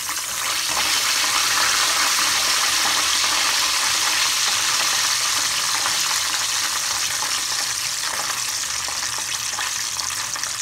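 Breaded fish fillet frying in hot oil in a small frying pan: a steady sizzle, a little louder from about a second in.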